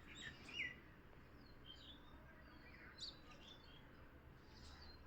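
Faint bird calls: short, high chirps and tweets scattered irregularly over a quiet background hiss, the clearest a little after the start and again about three seconds in.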